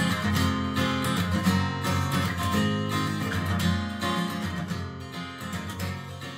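Background music with strummed acoustic guitar, gradually fading out.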